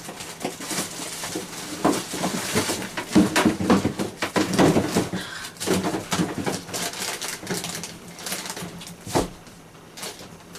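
Kitchen handling noise while searching for ingredients: an irregular run of knocks, clicks and rustles as things are moved about, with a sharper knock near the end.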